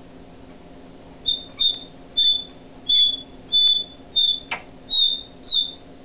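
African grey parrot whistling a run of about eight short, high notes, all at one pitch and spaced roughly half a second apart. A sharp click comes about four and a half seconds in.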